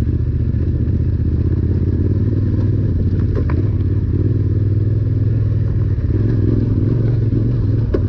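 Yamaha Ténéré 700's parallel-twin engine, fitted with a Yoshimura slip-on exhaust, running steadily with a low-pitched note while riding over loose rocks, with light clatter and knocks from the stones.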